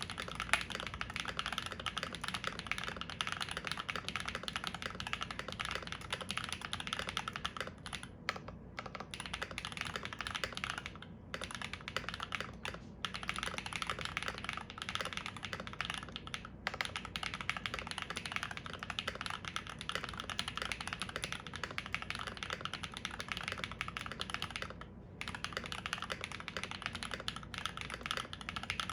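Continuous fast typing on a custom mechanical keyboard with lubed Bolsa Supply Zaku linear switches (Krytox 205g0, films) on an FR4 plate under GMK keycaps, without foam: a dense run of keystroke clacks with a few brief pauses.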